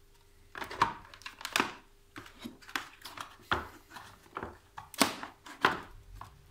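Irregular hard plastic clicks, knocks and rustling as a cordless saw, its charger and cable are handled and set into a moulded plastic carry case, the loudest knocks about five seconds in.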